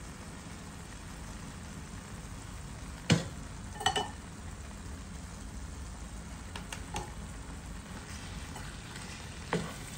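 Vegetable and tomato filling sizzling gently in a frying pan as a heap of soaked rice vermicelli goes in. A sharp knock comes about three seconds in, a ringing clink just under a second later, then a few lighter knocks as a wooden spoon starts working the noodles near the end.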